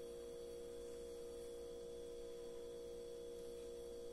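Steady electrical hum: a few close-set steady tones that do not change, with no other sound over them.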